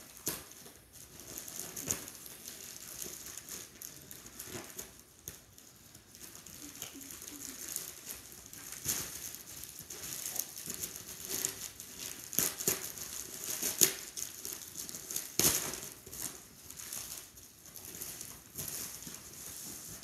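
Plastic mailer bag being pulled open and handled, rustling and crinkling with irregular sharp crackles.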